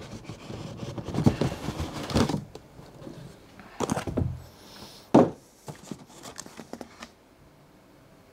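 Cardboard box being opened and handled: the lid scraping and rustling as it slides off, a few knocks, and a sharp thump about five seconds in, then lighter clicks of cardboard before it goes quiet.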